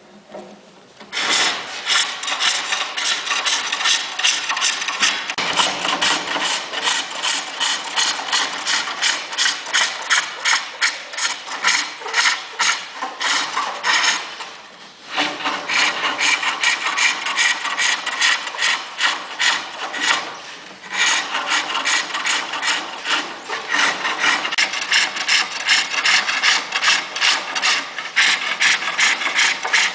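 Lathe turning tool cutting a spinning workpiece: a rapid, rhythmic scraping that stops briefly twice, near the middle and about two-thirds of the way through.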